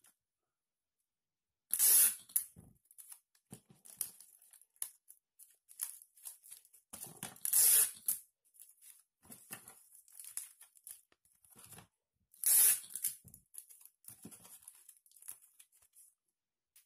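Clear sticky tape pulled off a desk tape dispenser and torn off, three times about five seconds apart, with light rustling and tapping of cardboard being handled in between.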